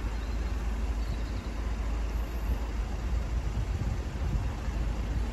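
Steady low rumble of road traffic, with cars idling while the crossing is closed.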